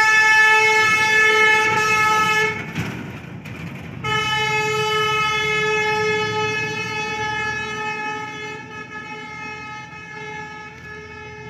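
Vehicle horn held in two long blasts on one steady pitch: the first cuts off about two and a half seconds in, and the second starts about a second and a half later and slowly fades away.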